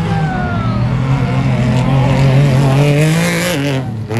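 Desert trophy truck's engine running hard as it approaches, its pitch climbing steadily, then dropping as it passes by near the end, with a rush of noise as it goes past.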